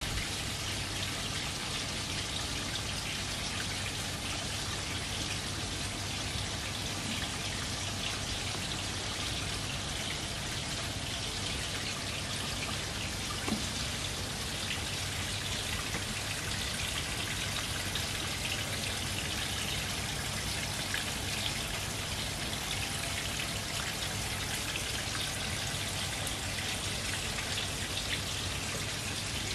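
Steady splashing and trickling of water at a garden koi pond, with a low steady hum underneath.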